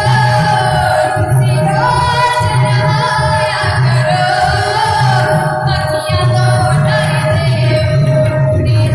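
Female singing a melody over a steady held drone note, with a low pulsing accompaniment underneath.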